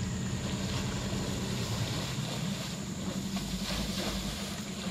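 A small boat's engine running steadily at low revs, a constant low hum with a faint hiss over it.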